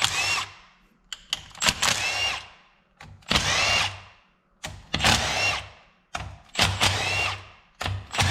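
Cordless drill or driver run in short bursts, about every second and a half, each spinning up in pitch and then dying away as it backs out the engine's valve cover bolts.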